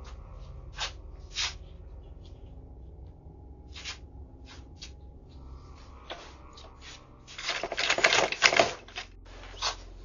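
Clicks and knocks from a front door being tried and struck, heard through a doorbell camera's microphone. A dense burst of rattling and banging comes about seven and a half seconds in and lasts just over a second, with a few single knocks before and after.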